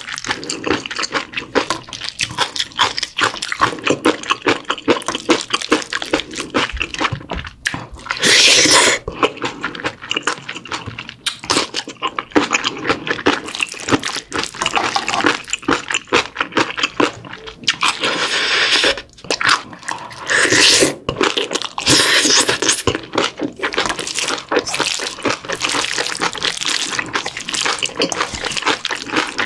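A spoon mixing bibimbap in a stainless steel bowl: rice, kimchi, tuna and gochujang give wet, sticky squelching, with rapid small clicks of the spoon against the metal. There are several louder bursts of about a second each.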